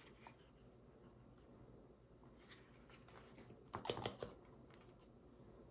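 Faint handling noises of small plastic model parts and tools on a hobby bench: light clicks and rustles, with a short clatter of sharp ticks about four seconds in.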